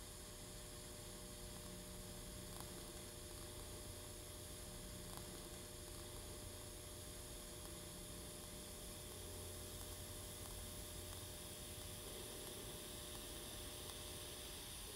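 TIG welding arc on titanium tubing: a faint, steady electrical hum with hiss, running evenly as the weld bead is laid.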